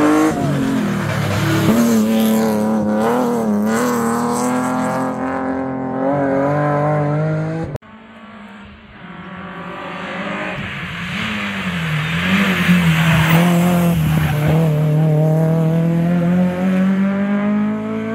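Rally car engines at hard throttle, the engine note rising and falling with gear changes and lifts. About eight seconds in it cuts off abruptly, and another car is heard approaching, getting louder, its engine held at a high steady pitch near the end.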